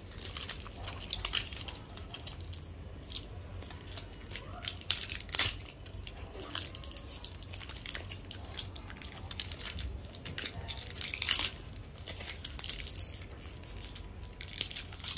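Plastic wrapping crinkling and tearing in irregular crackles as a child unwraps the layers of an L.O.L. Surprise ball.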